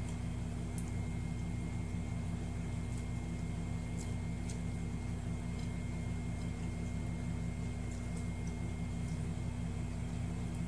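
A steady low machine hum made of several pitched tones, unchanging in level, with a few faint clicks.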